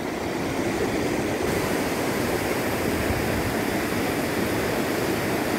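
Steady rush of a fast-flowing river in flood, its water churning over rocks in rapids, with wind on the microphone.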